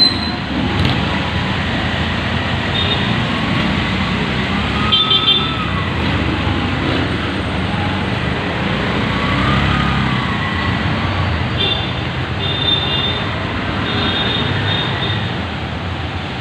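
Street traffic on a wet road: motorized tricycles and cars passing, with engine notes rising and falling a couple of times as vehicles go by.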